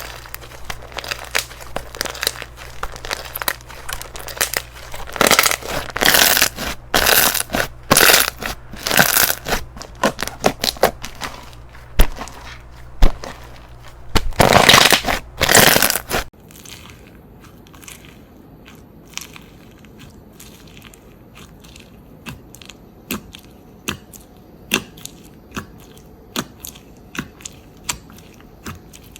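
Slime packed with plastic perler beads being squished and poked by hand, giving dense crunching and crackling clicks. About sixteen seconds in the sound changes to sparser, quieter clicks and pops.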